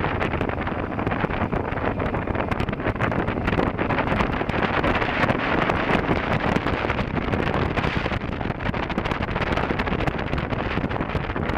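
Riding noise from a KTM 950 Adventure on a gravel track: a steady rush of wind on the helmet-camera microphone mixed with engine and tyre noise, with many small ticks throughout.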